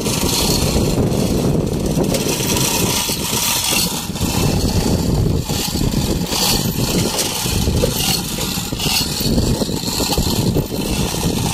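Fishing boat's engine running steadily under wind and sea noise.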